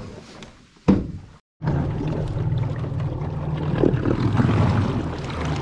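A sharp knock about a second in, then a cut to an electric trolling motor running steadily on a jon boat, a low rumble of motor and propeller churning water. The motor is loud enough that it is said to need replacing.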